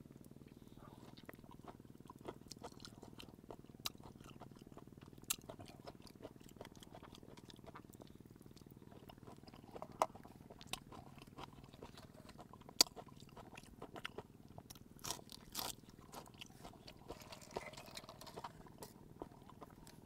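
A person chewing raw spiny lobster meat, with wet mouth clicks and lip smacks, and scattered sharp clicks throughout, the loudest about ten and thirteen seconds in.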